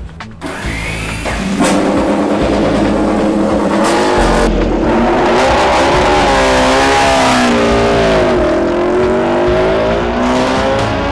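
Honda MotoGP production racer motorcycle's V4 engine revving hard. It gets loud about a second and a half in, and its pitch swoops up and down as it accelerates and shifts, over background music.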